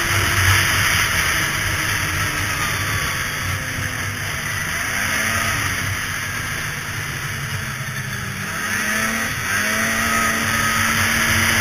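Polaris SuperSport 550 snowmobile's two-stroke engine running along a trail, over a steady hiss of wind and track noise. Its pitch sinks as the sled eases off in the middle and climbs again about nine seconds in as the throttle comes back on.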